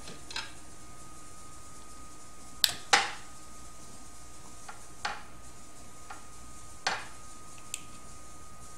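Sharp clicks and light metallic clinks as the zip tie holding the belt on a Printrbot Simple Metal's carriage is cut and the parts are handled. The loudest is a pair of snaps about three seconds in. A faint steady high tone runs underneath.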